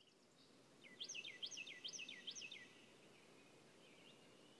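A bird chirping: a quick run of about seven sharp, falling high notes starting about a second in, with one faint note later, over a faint steady outdoor hiss.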